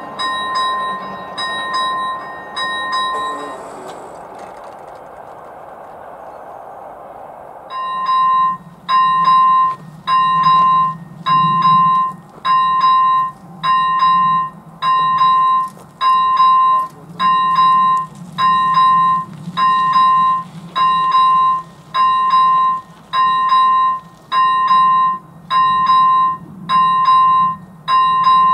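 Electronic warning bell of a Czech level crossing (first-generation electronic bell with AŽD 71 lights) sounding a clear ding about once a second. It stops after three dings, a few seconds in, as the crossing clears. About eight seconds in, a crossing bell starts again and rings on steadily, warning of an approaching train.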